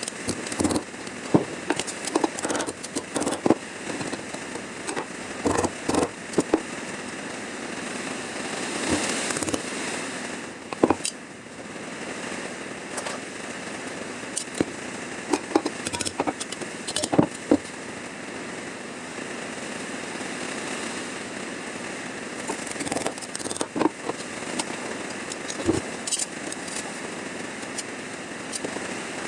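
MIG welder laying a patch panel into a car's rear fender: a steady crackling hiss broken by frequent sharp snaps of spatter.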